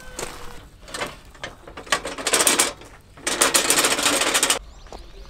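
Camping gear being packed up: a few small knocks and clicks, then two long rasping pulls of a zipper, the second about a second and a half long, made of many fine rapid ticks.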